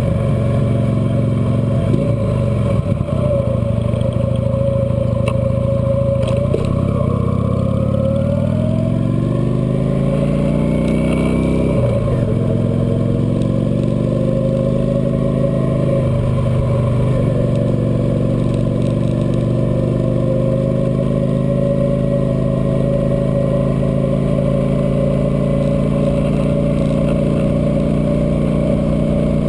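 Cruiser motorcycle engine running under way. Its pitch climbs steadily for several seconds as it accelerates, drops sharply about twelve seconds in, then holds steady at cruising speed.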